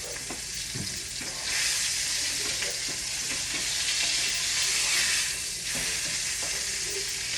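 Ground beef sizzling as it fries in a pan. The sizzle swells louder about a second and a half in and eases slightly near the end, with a few light knocks.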